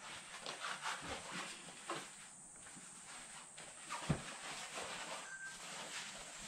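Soft rustling and handling of cloth as an obi sash is wrapped and tied over a cotton yukata, with one sharp short sound about four seconds in.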